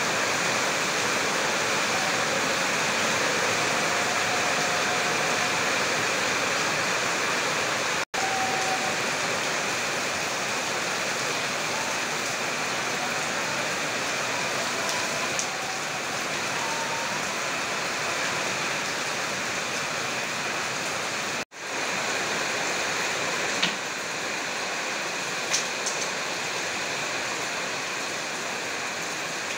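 Steady rain falling on roofs and the street, an even hiss of rain. The sound cuts out for an instant twice, about 8 and 21 seconds in.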